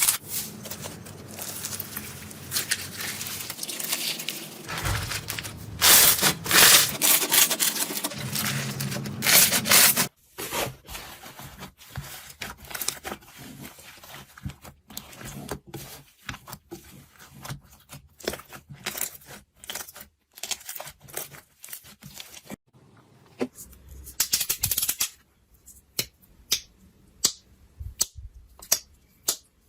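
Slime being squeezed and worked by hand: a dense crackling and crinkling for about ten seconds, then after a sudden change a run of sharp sticky clicks and pops.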